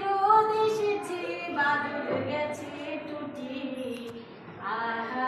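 Young children and a woman singing a song together, with a short break about four seconds in before the next line starts.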